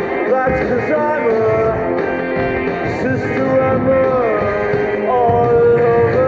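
Background music: a song whose melodic lines hold notes and slide between them in pitch.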